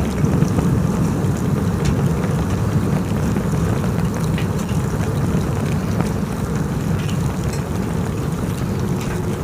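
Wood campfire crackling, with sharp pops scattered over a steady low rumble.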